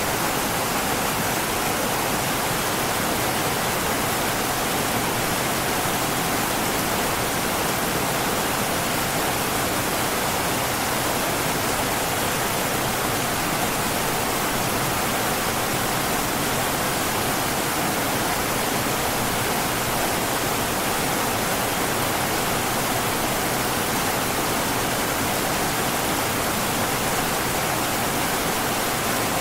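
River water flowing and rushing over rocks in a steady, even wash.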